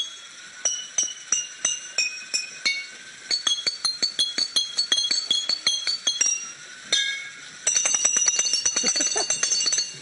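Tuned glass bottles struck one after another, each ringing a clear clinking note, so that together they play a tune. Near the end the strikes come in a quick run of several a second.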